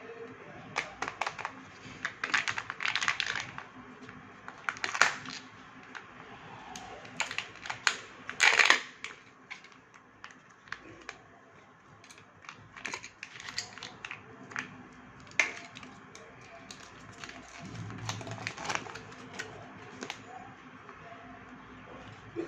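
Kinder Joy eggs being opened by hand: plastic wrappers crinkling and tearing, with irregular sharp clicks of the plastic egg shells. The loudest crackle comes a little before halfway.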